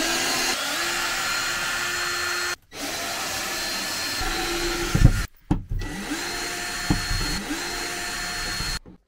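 Power drill running in several long bursts with short breaks, its motor whine rising each time it spins back up to speed, as the bunk's framing is taken apart. There are a couple of sharp knocks near the middle.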